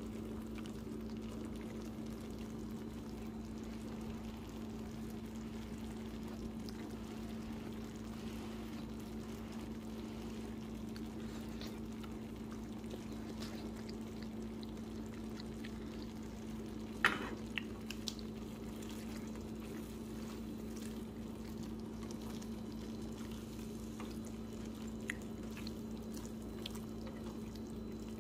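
Creamy beef-and-noodle mixture simmering in a skillet over a steady low hum, with a sharp clink of a utensil against the pan about 17 seconds in and a few faint ticks.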